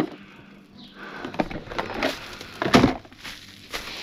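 Boxed and bottled products being handled and set down: a few scattered knocks and rustles, the loudest knock about two and three-quarter seconds in.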